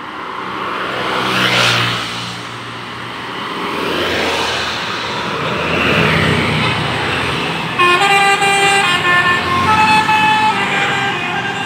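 Two large vehicles rush past, each swelling and fading, then about 8 seconds in a bus's multi-tone 'telolet' musical horn plays a quick tune of changing notes.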